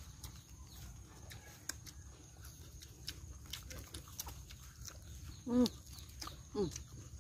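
Close-up eating sounds from hands-on eating of roasted chicken: chewing, lip-smacking and small clicks from tearing meat, over a steady low hum and a thin high steady tone. Near the end, two short calls falling in pitch, about a second apart, are the loudest sounds.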